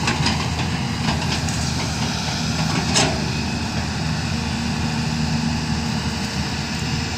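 Diesel engine of an earthmoving machine running steadily, with a few short sharp knocks, the loudest about three seconds in.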